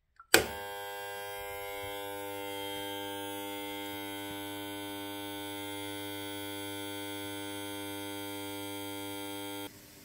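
A push-button switch clicks, then the electromechanical buzzer of a 1962 Constructa K4 washing machine sounds a steady buzz for about nine seconds and cuts off abruptly shortly before the end. This buzzer is the machine's signal to add detergent.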